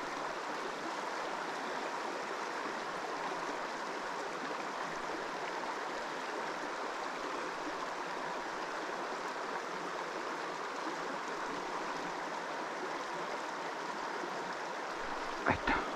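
Steady rushing of a river's current running over stones, with a brief sharper sound near the end.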